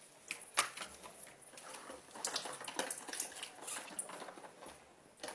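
Small toy pots and dishes being handled and stacked at a sink: a scattering of light knocks and clinks. A faint trickle of rinse water runs through the middle.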